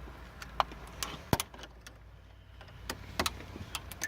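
Irregular sharp clicks and metallic knocks of hand tools working on a 1998 GMC Jimmy's steering column to remove the lock cylinder, the loudest knock about a second in, over a low steady rumble.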